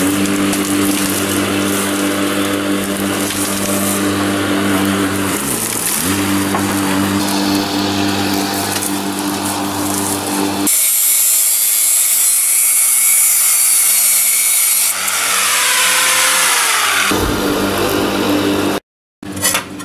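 Iskra BK 850-125 angle grinder cutting steel pipe: a steady motor hum that sags briefly under load, then about ten seconds in a harsher, high-pitched grinding. It cuts off suddenly near the end.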